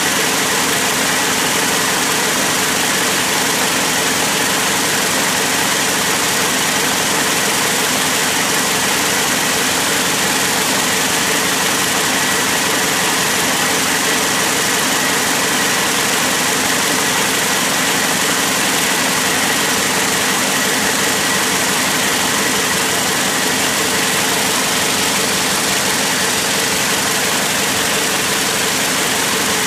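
High-speed braiding machines running at full speed: a loud, steady mechanical din from the bobbin carriers circling the braiding deck, with a faint steady high whine.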